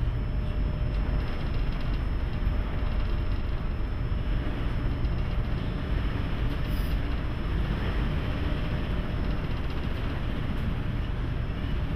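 Steady low rumble with rough wind noise aboard a Great Lakes freighter running through heavy seas.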